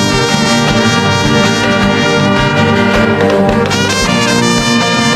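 Background music led by brass, trumpets and trombones playing sustained chords over a steady low beat.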